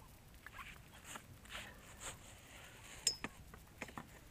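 Handling noise of fishing rods, reels and a cord being fastened to a rod wagon: scattered light clicks and rustles, with one sharp metallic clink about three seconds in.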